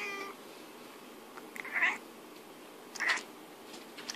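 British shorthair cat giving a series of short meows, one every second or two, as if talking back.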